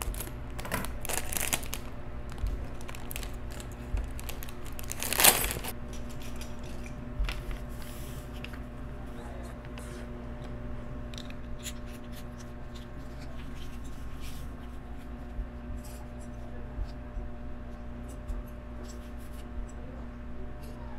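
Plastic LEGO parts bags being handled and torn open, with crinkling rustles and small hard plastic pieces clicking and rattling; the loudest rustle comes about five seconds in. A steady faint hum runs underneath.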